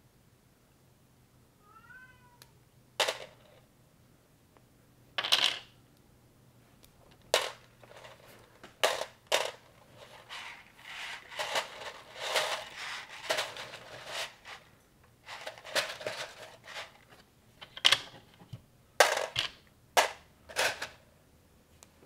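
Plastic Technic-style construction pieces from a knockoff LEGO set being handled and fitted together: scattered sharp clicks and snaps, with several seconds of pieces rattling and rustling in the middle. About two seconds in, a brief pitched squeak that rises then falls.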